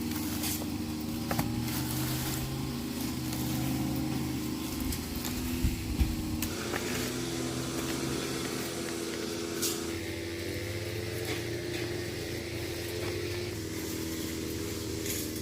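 A small engine running steadily, its pitch shifting up or down in steps several times, with two short knocks about halfway through.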